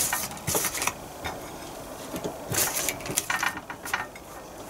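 Table knife spreading cold, hard butter across slices of bread, in a few short scraping strokes.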